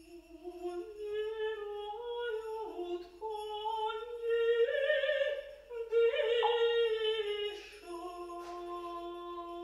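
Mezzo-soprano singing a slow, free vocal line of held, stepping notes in Russian, sung into a piano with its sustain pedal held down. The line swells to its loudest near the middle.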